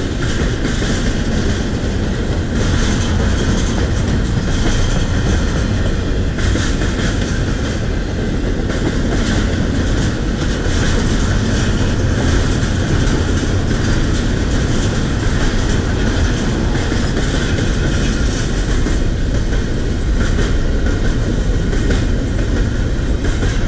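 A double-stack container freight train rolling past: steel wheels rumbling and clattering on the rails, loud and steady throughout.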